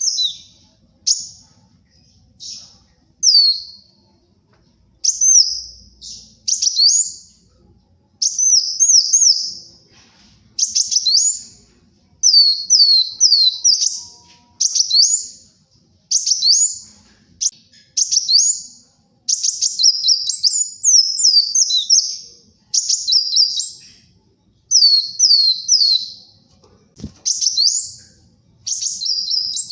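Kolibri wulung sunbird singing a fast, high-pitched song: short bursts of rapid sweeping chirps, each burst about a second long, repeated with brief pauses between them.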